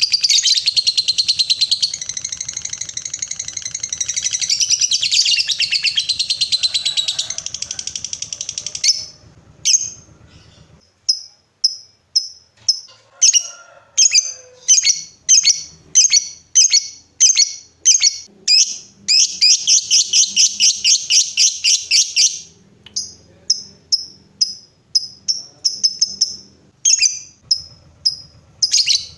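Lovebird singing its 'ngekek': a long, rapid, continuous high chattering trill for about nine seconds, then a run of separate sharp high chirps, broken by another few seconds of rapid trilling past the middle.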